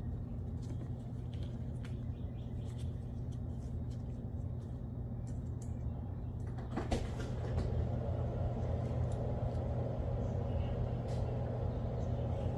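A steady low mechanical hum, with faint metallic clicks and taps of disc brake parts being fitted by hand, and one sharper tap about seven seconds in.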